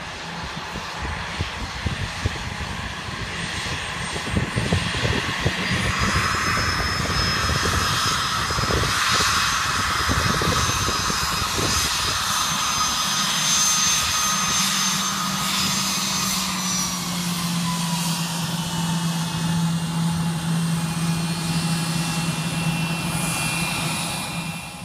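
Twin rear-mounted Rolls-Royce AE 3007 turbofans of an Embraer ERJ-145 regional jet running as it rolls past on the ground close by. The jet noise grows louder over the first several seconds, then holds, with high turbine whines over a low hum. Partway through, one whine drops in pitch as the plane passes, and the sound cuts off abruptly at the end.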